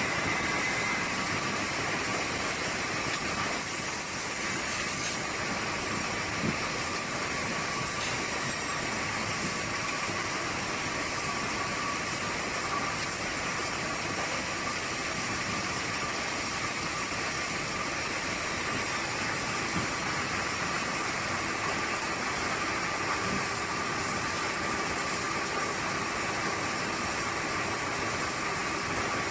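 Rotary veneer cutting lathe running steadily as it peels a log into a continuous sheet of wood veneer: an even, hissing machine noise with a constant high whine.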